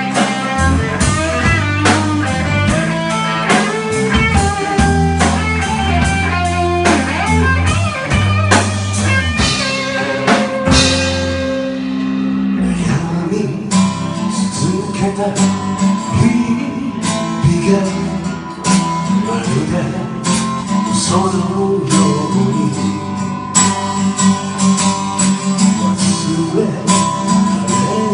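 A live band playing with acoustic guitar, bass and drum kit, with a melody line over the top. The heavy low bass drops away about twelve seconds in.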